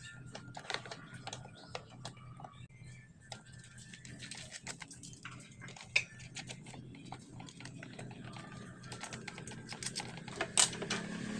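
Small scattered clicks and taps of metal hex nuts and fingers against a plastic PVC end cap as the nuts are threaded by hand onto bolts. A sharper click comes about six seconds in and a louder one near the end.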